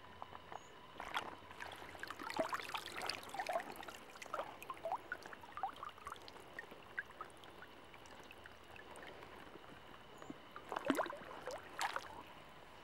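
Water dripping and trickling off a lifted water lily's roots and stems into a pond, as a scatter of small drips and gurgles. Two louder splashes come near the end as the plant goes back into the water.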